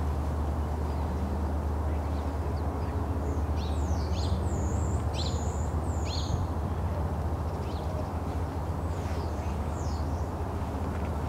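Birds calling in a run of short, high, falling chirps from about three seconds in, with a few more near the end, over a steady low rumble.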